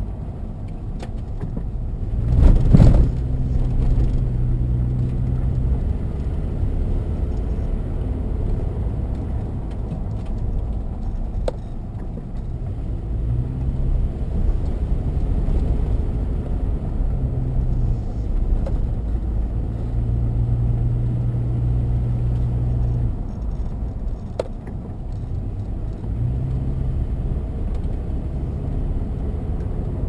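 Car driving on a narrow paved forest road, heard from inside the cabin: steady low road and tyre rumble, with the engine's hum coming and going. There is a loud thump, a jolt over a bump, about three seconds in, and a few light knocks later.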